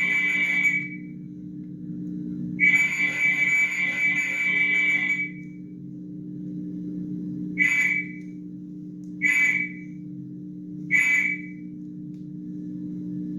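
A whistle blown in long and short blasts: a long blast ending just under a second in, another of about two and a half seconds, then three short blasts about a second and a half apart. A steady low hum runs underneath.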